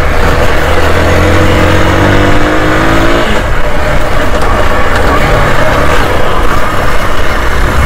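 Hero Xpulse 200 motorcycle's single-cylinder engine under way on an off-road trail. It revs up steadily from about a second and a half in, eases off after about three seconds and carries on at lower revs, all under a steady rushing noise.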